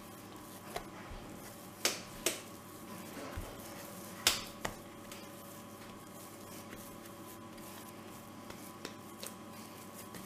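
Hands kneading biscuit dough on a wooden board: a few sharp slaps and knocks in the first five seconds, then quieter pressing and folding.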